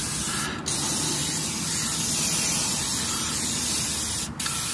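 Aerosol spray can hissing steadily as a new rear control arm is sprayed down before fitting, with brief breaks about half a second in and near the end.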